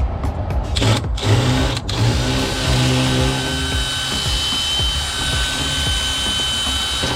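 Power drill/driver backing out rusted sex bolts on an exit device: a couple of short trigger pulses about a second in, then a steady whining run.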